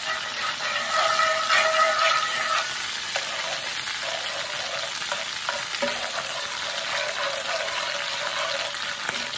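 Butter and minced garlic sizzling and bubbling in cast-iron skillets as tongs stir it around the pans.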